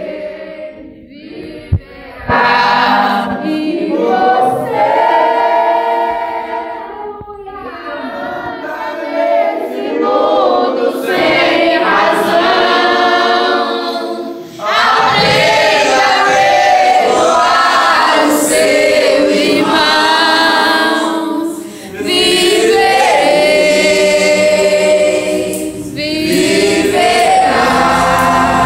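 Voices singing without instruments, in long held phrases broken by short pauses. A brief click sounds about two seconds in.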